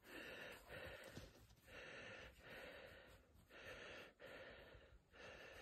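Near silence, with faint, even breathing close to the microphone, in and out in soft pairs.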